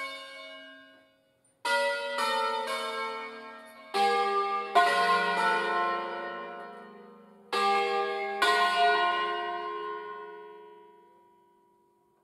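Wheel-mounted swinging church bells from a five-bell peal in F, cast by Angelo Ottolina of Bergamo in 1957, ringing a solemn peal. About eight strokes come in irregular small clusters, each ringing on under the next, and the sound fades away near the end.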